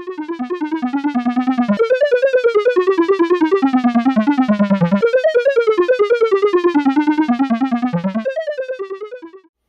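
Synthesizer music: a fast, even stream of short repeated notes that traces a wandering melody, fading out near the end.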